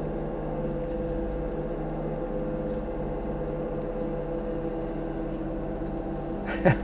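Kubota U35-4 mini excavator's diesel engine running steadily while the boom and bucket are worked, heard from the operator's seat. A brief louder sound, falling in pitch, comes near the end.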